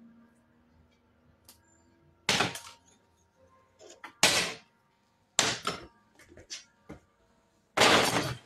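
Brown paper grocery bag crinkling and rustling loudly four times as trash is pushed into it, with small clicks and taps in between; the last and longest crinkle comes near the end, as the bag's sides fold in.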